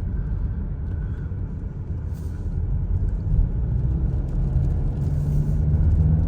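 Mercedes GLK 250 SUV driving on a wet road: a steady low rumble of engine and tyres, with the engine tone rising a little about five seconds in.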